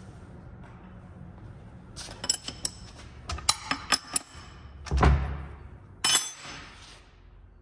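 Sharp metallic clicks and clinks of a wrench working a bolt on a steel tool bracket in an aluminium transmission bellhousing. A heavy thud comes about five seconds in, then a single ringing metal clank.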